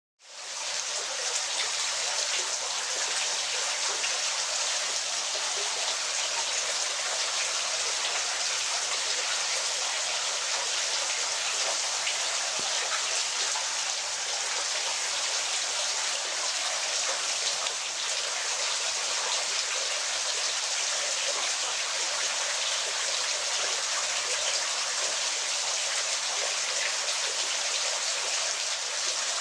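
Waterfall: a steady rush of falling, splashing water with little low rumble, fading in at the very start.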